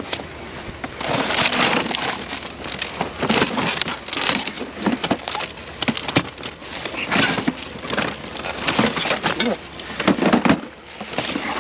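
Junk in a curbside pile being rummaged through and shifted: irregular crunching, rustling and clattering of debris being moved.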